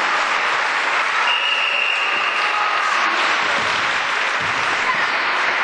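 Spectators applauding steadily, with a brief high steady tone about a second and a half in.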